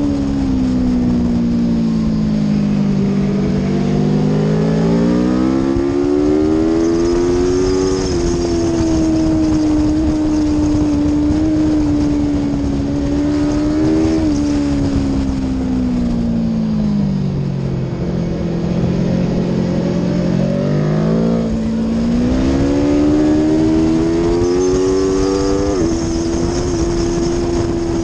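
Aprilia Tuono V4's V4 engine on a race track: its note drops as the bike slows for a corner and rises again under hard acceleration, twice, holding a high steady pitch in between. Wind rush is heard under the engine.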